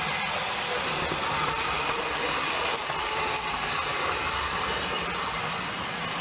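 Tri-ang OO-gauge Hall class model steam locomotive running on the track with its train of coaches: a steady motor hum and wheel rumble. Its gears are showing a little grinding, which the owner found after test running.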